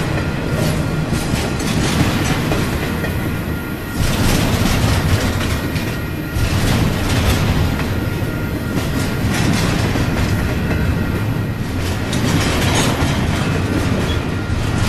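Double-stack intermodal container freight train rolling past: a loud, steady rumble of steel wheels on the rails with clickety-clack over the rail joints.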